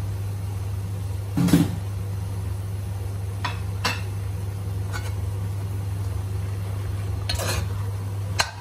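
A metal spoon knocking and clinking against a cooking pot a few times while dried cassia leaves are stirred into a curry. The loudest knock comes about a second and a half in. A steady low hum runs underneath.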